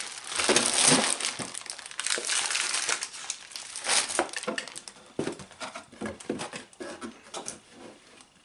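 Plastic parts bags crinkling and rustling as they are packed into a cardboard kit box. The sound is dense for the first few seconds, then breaks into scattered, lighter rustles and small knocks of cardboard that thin out toward the end.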